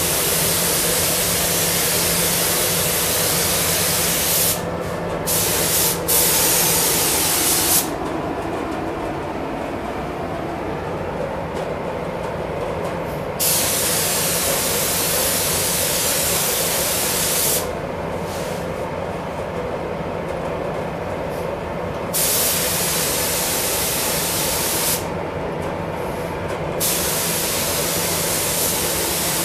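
Compressed-air paint spray gun hissing as it sprays a body panel, switching on and off several times as the trigger is pulled and released, with pauses of a few seconds between passes. A steady low hum of the spray booth's ventilation runs underneath.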